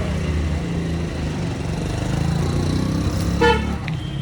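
A steady low engine rumble, with a vehicle horn tooting once, briefly, about three and a half seconds in.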